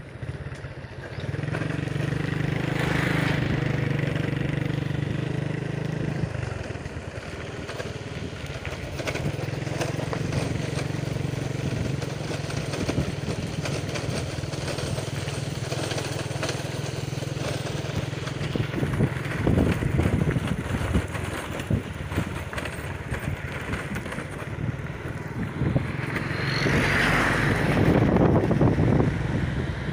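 Motorcycle engine running steadily on the move, heard from the pillion seat; the engine note eases about six seconds in. Wind buffets the microphone in bursts, loudest near the end.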